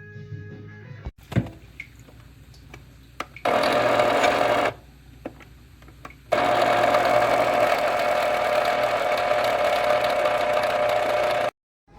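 SHARDOR electric blade coffee grinder's motor running in two bursts, one of about a second and one of about five seconds, each stopping abruptly, after a sharp click about a second in. The owner says the grinder's shaft is loose with no bearing behind it.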